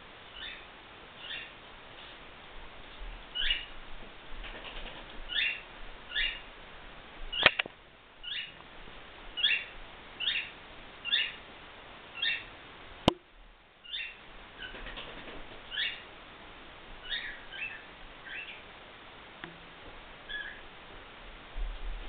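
Cockatiel chirping over and over, short high calls about once a second, some in quick pairs. Two sharp clicks, the loudest sounds, break in about a third and about two thirds of the way through.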